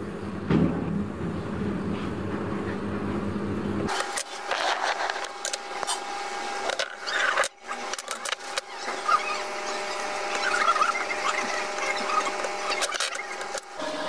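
Scattered clicks and knocks of hands handling parts on a workbench, over a faint steady whine. A low steady hum in the first few seconds cuts off abruptly about four seconds in.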